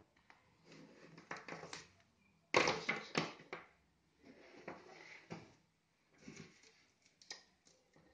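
Plastic drip-irrigation tubing and fittings handled and shifted on a tabletop: irregular rustling, clattering and clicks, loudest about two and a half seconds in.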